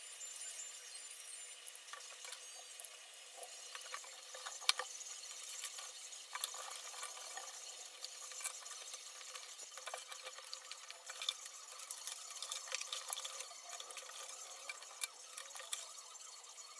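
Irregular light clicks, taps and scrapes of hand work on a desktop computer's case and power supply, with no steady rhythm.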